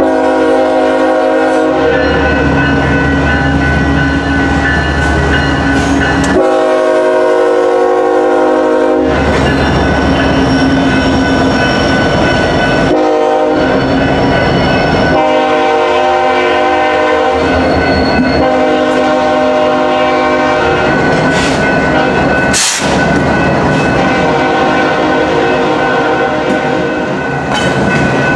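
BNSF diesel freight locomotives passing close under power, the engines running with a low rumble and a steady whine, while a locomotive air horn sounds in a series of long blasts.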